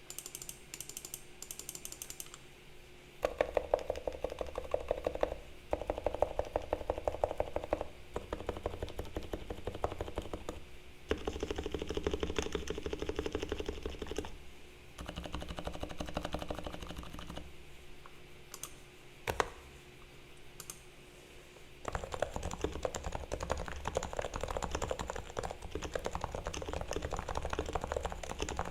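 Typing on a Realforce R2 TKL silent Topre keyboard whose sliders, springs and stabilizers are lubed and whose case is dampened with Thinsulate. Fast runs of soft, muted key strokes come in several bursts with short pauses between them, and one single louder stroke falls a little past the middle.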